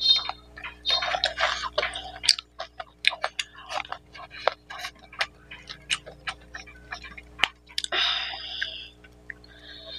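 Close-miked eating: a mouthful of rice and mutton curry being chewed, with many sharp, wet mouth clicks and smacks. There are short squelchy stretches as fingers knead rice into the curry gravy.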